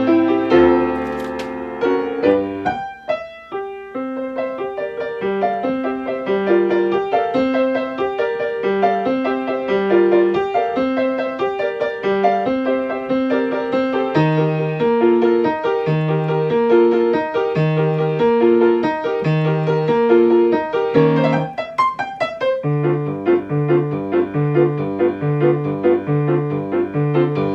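1972 Yamaha G3 grand piano playing a lively accompaniment over a bouncing bass line, with a brief quieter patch about three seconds in, then steady repeated chords about twice a second near the end. The owner says its keys return unevenly, so that right-hand chords come out slightly staggered.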